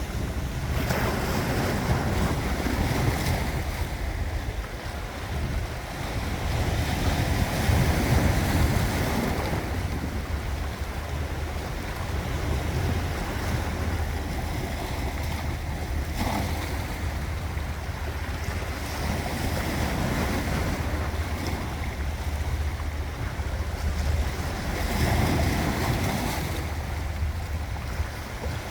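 Ocean waves breaking and washing on the shore, the surf rising and falling in slow swells every few seconds, with wind rumbling on the microphone.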